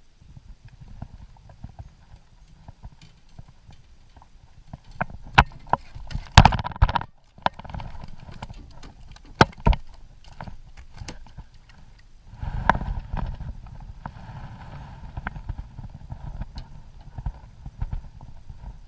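Irregular hollow knocks and clicks against a kayak's hull, with a low rumble. The loudest knocks cluster about five to seven seconds in and again near the middle.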